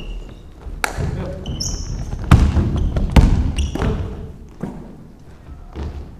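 A basketball bouncing and thudding on a hardwood gym floor during a passing drill, with a few heavy thuds, the loudest two just under a second apart in the first half, and brief high sneaker squeaks.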